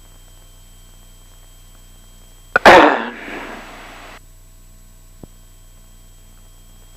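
A sudden, loud burst of noise over the cockpit intercom or radio audio: a click, then a rushing noise that fades and cuts off abruptly about a second and a half later, followed by a faint click.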